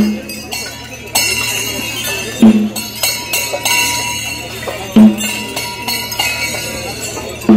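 Slow, regular percussion: a deep drum stroke about every two and a half seconds, four in all, over continuous jingling and clinking of bells and small cymbals.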